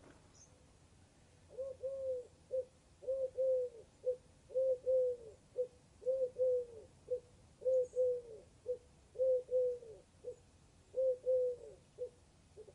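A bird cooing: a three-note phrase of two drawn-out notes and a short one, repeated about seven times at roughly one-and-a-half-second intervals, starting a second or so in.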